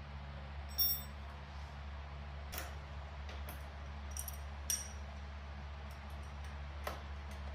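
Metal wrench clinking against a nut and bolt while tightening a stiff nylon lock nut on a trike's flag mount bracket: about six separate clinks, the one about a second in ringing briefly. A steady low hum runs underneath.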